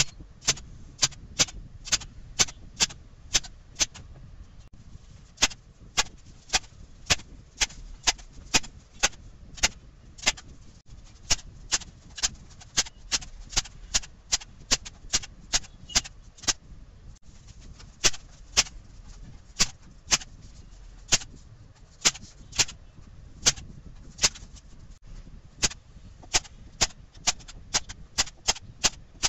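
Miles M2311 hand-squeezed staple gun firing staples over and over, a sharp snap with each squeeze, about two a second in runs broken by brief pauses. It drives them into a wooden plank, then a polystyrene block, then cardboard.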